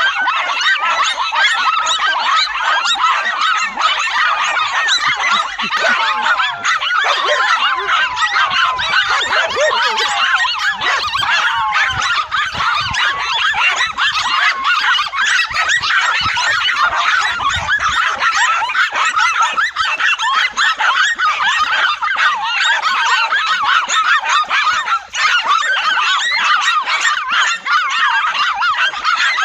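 A dense, continuous din of many animals calling at once, with short high calls overlapping without pause.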